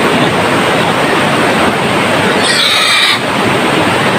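Rushing shallow river water, steady throughout. A live, freshly caught wild boar lets out one high squeal lasting under a second, about two and a half seconds in.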